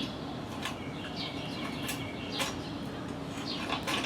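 Birds chirping: short, falling chirps repeated several times, over a steady low hum.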